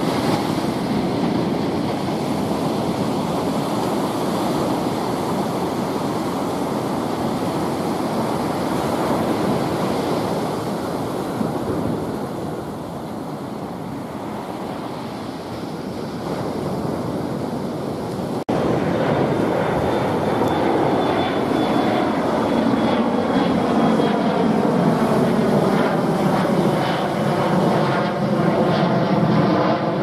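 Ocean surf breaking and washing up the sand for the first half. Then, after an abrupt cut about 18 seconds in, a twin-engine turbofan regional jet passes overhead climbing out: a steady, louder jet roar with a faint whine slowly falling in pitch.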